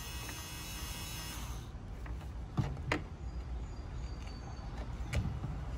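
Faint steady low hum with a few light, sharp clicks, about two and a half, three and five seconds in, from hands working a cordless flaring tool clamped on a copper refrigerant line. A faint high whine stops about a second and a half in.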